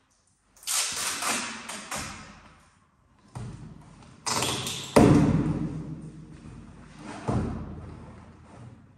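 Hands handling a cardboard shipping box: scraping and rustling noises with several thuds on the cardboard, the loudest about five seconds in and another about seven seconds in.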